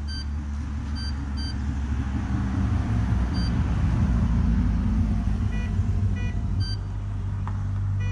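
Ricomax metal detector giving short beeps, some high-pitched and some lower, as a dime is moved toward its search coil. Under the beeps, the low rumble of passing road traffic swells toward the middle and is the loudest sound.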